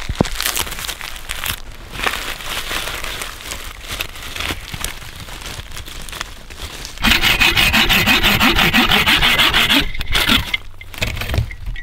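Dry birch bark and twigs rustling and crinkling as they are handled, then, about seven seconds in, a hand saw cutting a thin dead sapling with fast, even back-and-forth strokes, the loudest sound, stopping near the end.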